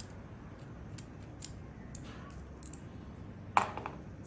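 Small screwdriver turning a tiny screw out of the metal body of an HU66 lock decoder tool: scattered light metallic clicks and ticks, with one louder brief clack about three and a half seconds in.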